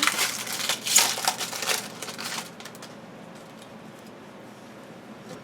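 Crinkling and rustling of a foil trading-card pack and its cards being handled, for about two and a half seconds.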